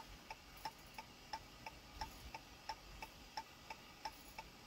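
A car's indicator clicker ticking steadily and faintly inside the cabin, about three ticks a second.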